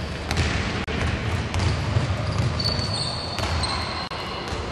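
Basketball being dribbled on a hardwood court, a run of low thuds mixed with players' running footsteps, and a high squeak partway through.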